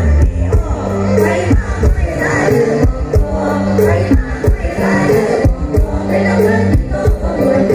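Loud live mor lam band music with a steady beat, a sustained bass line and singing.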